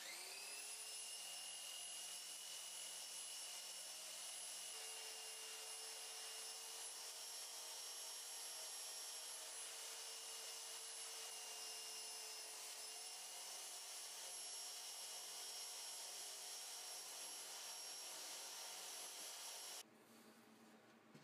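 Electric belt sander spinning up and running with a steady whine while the butt end of an antler knife handle is ground against the belt, rounding off its edges. The sound cuts off suddenly near the end.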